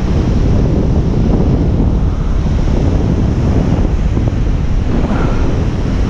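Surf breaking and washing in foam over a shallow reef, with heavy wind rumble on the microphone.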